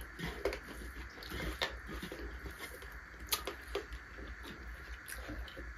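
Eating sounds of a meal taken by hand: fingers mixing rice on metal plates and chewing, heard as many small scattered clicks and smacks over a low steady hum.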